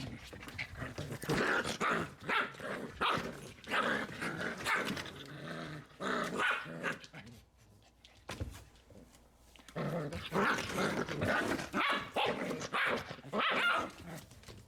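Young puppies barking and growling at each other in rough play-fighting, in two busy bouts with a short lull about halfway through.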